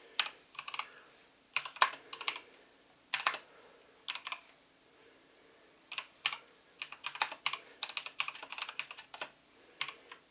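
Typing on a Patriot Viper V770 mechanical gaming keyboard: irregular runs of sharp key clicks, with a pause of about a second and a half near the middle.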